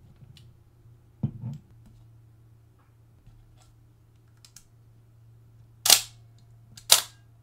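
Hasselblad 2000FC's titanium focal-plane shutter releasing: two loud, sharp mechanical clacks about a second apart near the end, the once-jammed shutter working again after repair. A softer low knock from handling the camera body comes about a second in.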